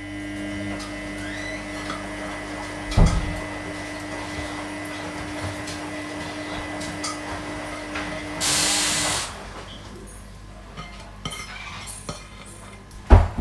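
A steady machine hum, with one sharp knock of a ceramic plate about three seconds in as chopped onion is tipped off it into a dish. A short loud hiss comes about eight seconds in, and the hum stops with it.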